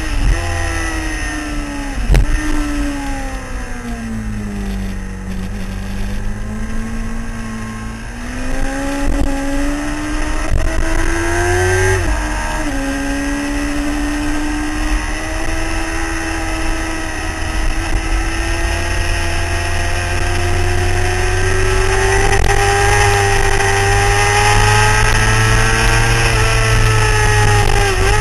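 Sport motorcycle engine heard from an onboard camera at speed on a race track. The engine note falls over the first few seconds as the bike slows, climbs again, drops sharply at a gear change about twelve seconds in, then rises slowly and steadily, with wind rumble on the microphone underneath.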